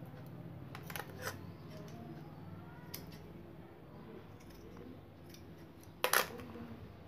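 Large metal scissors snipping the wool yarn of a fluffy garland: a few short, sharp snips, the loudest about six seconds in. A steady low hum runs underneath.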